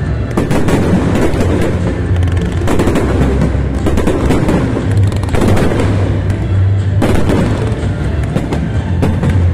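Aerial fireworks bursting and crackling in quick, irregular bangs over loud accompanying music.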